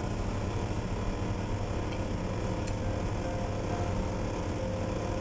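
Steady low hum of kitchen ventilation, with two faint light clicks near the middle.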